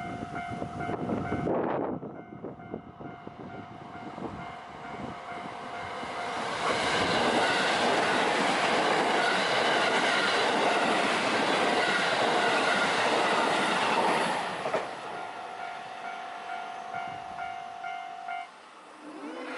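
A Japanese level-crossing warning bell rings its repeating electronic "kan-kan" tone while an electric train on the JR Biwako Line passes loudly over the crossing, from about six and a half seconds in to about fourteen and a half. There is a short falling-pitch sound about a second and a half in. The bell rings on after the train has gone and stops near the end.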